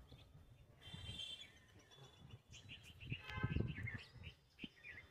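Faint bird chirping: short high notes repeated, mostly in the second half, over low muffled noise that swells about three and a half seconds in.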